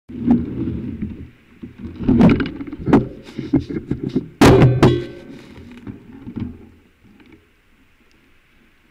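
Knocks, clicks and rattles from a bicycle and its fork-mounted action camera being jostled at a standstill, with one loud ringing metallic clank about halfway through. The knocking dies away in the last couple of seconds, leaving a faint steady hiss.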